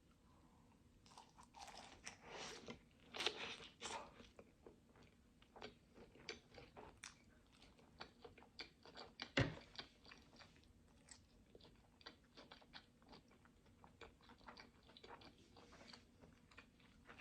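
A person chewing food close to the microphone: faint, irregular crunches and wet mouth clicks, with one sharper click about nine seconds in.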